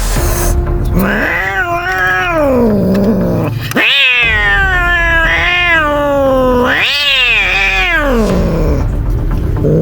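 Frightened cat yowling loudly: three long, wavering, drawn-out calls in a row, each sliding down in pitch at its end.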